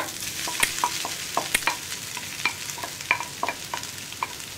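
Wooden spatula scraping crushed soya chunks out of a glass bowl into a frying pan: a string of short knocks and taps against the bowl and pan, some ringing briefly, over a light sizzle of the onion and spice mixture frying in the pan.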